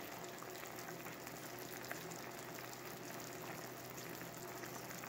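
Chicken adobo's soy-vinegar marinade sauce simmering in a frying pan: a faint, steady bubbling hiss with a low steady hum underneath.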